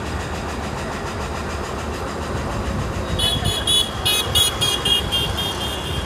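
City road traffic, a steady low rumble of passing vehicles. From about three seconds in, a vehicle horn sounds a rapid run of short high-pitched beeps, about four a second.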